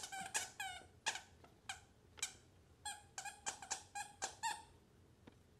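Plush dog toy's squeaker squeezed by a Shiba Inu puppy chewing on it: a quick, uneven run of short squeaks that stops about four and a half seconds in.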